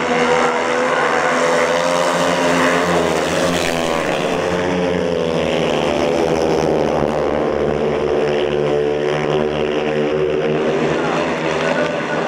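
A pack of 500cc speedway bikes racing, their single-cylinder engines running hard together, the pitch dipping and rising again as the riders ease off and open up through the turns.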